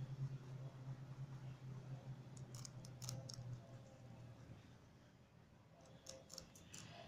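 Rabbit biting and chewing a celery stalk: faint, crisp crunching clicks in a cluster about two and a half seconds in and again near the end, over a low hum that fades out about three and a half seconds in.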